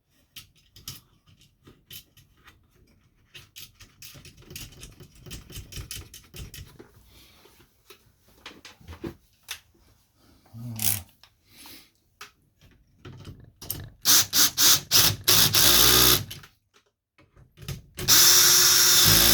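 Power drill fixing an aluminium plate bracket in place: a long stretch of small handling clicks and rattles, then the drill runs in short stuttering bursts and, near the end, in one longer steady run.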